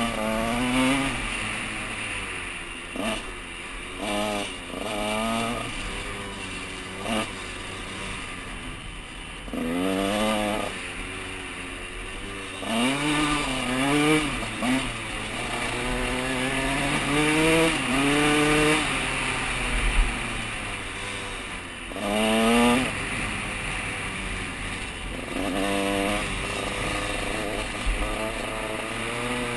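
KTM 150 SX dirt bike's single-cylinder two-stroke engine being ridden hard, its pitch climbing and dropping again and again as the throttle is opened and closed.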